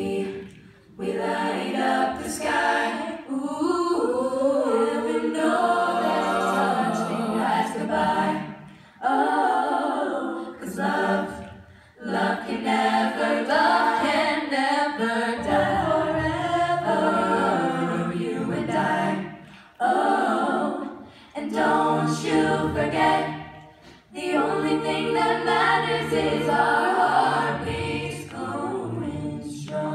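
Middle school a cappella choir singing in harmony, voices only with no instruments, in phrases separated by short breaths.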